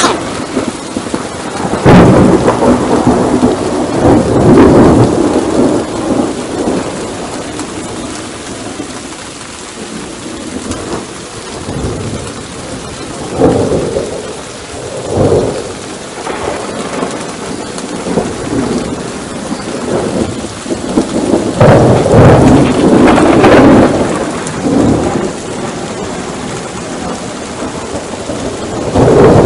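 Thunderstorm: steady rain with repeated rolls of thunder. There are big rumbles near the start, two shorter ones around the middle and a long roll late on, and another swells up at the very end.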